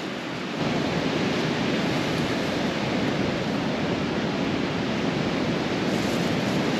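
Strong wind rushing over the microphone, a steady noise that gets louder about half a second in.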